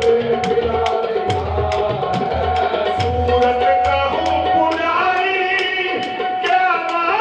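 Qawwali music: sustained harmonium notes over a steady hand-drum beat, with voices singing a melodic line from about the middle on.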